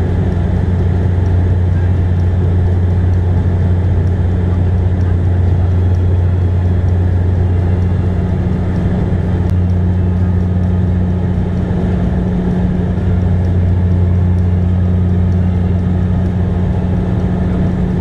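Cabin noise of a Bombardier Dash 8 Q400 turboprop climbing after takeoff: a loud, steady low drone from the propellers, with a deeper hum and a fainter one an octave above it, over a rush of airflow.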